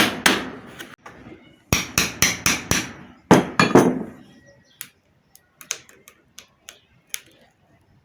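Hammer blows driving a screwdriver, used as a chisel, to crack out a centrifugal water pump's stuck water seal: quick runs of sharp metallic strikes, about four to five a second, in three bursts over the first four seconds, then scattered light taps and clicks.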